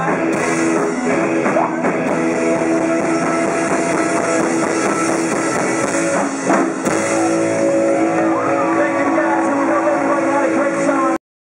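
Live rock band playing: electric guitar through Marshall amplifiers, bass guitar and drum kit. The music cuts off suddenly near the end.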